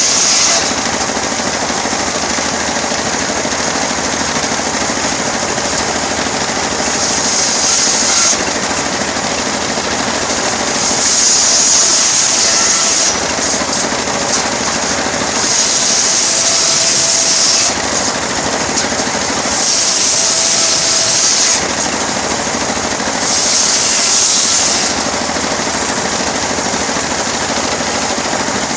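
Homemade engine-driven sawmill running steadily while sawing teak. A louder, higher hiss comes in every three to four seconds and lasts a second or two, as the blade works through the wood.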